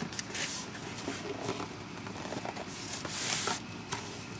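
Cardboard shipping box being opened by hand, its flaps scraping and rustling, with a longer, louder scrape about three seconds in.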